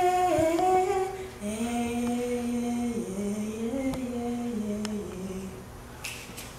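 A woman singing unaccompanied, a slow melody in long held notes that step up and down, trailing off near the end.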